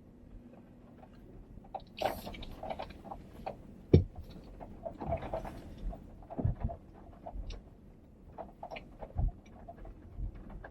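A car driving slowly over a rough gravel and dirt track: stones crunching and popping under the tyres, with irregular knocks and rattles from the car. One sharp, loud knock comes about four seconds in.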